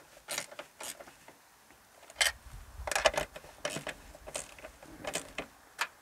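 Scattered sharp metallic clicks and rattles of a wrench nipping up the fixings on a plastic sail panel, with a dull bump about two seconds in.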